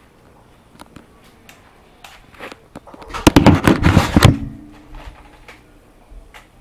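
A rapid burst of loud, sharp cracks, like automatic gunfire, about three seconds in and lasting about a second and a half. Scattered fainter clicks and knocks come before and after it.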